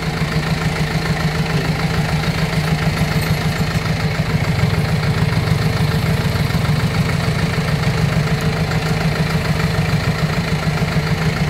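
Heavy truck's diesel engine idling steadily, with an even low chugging.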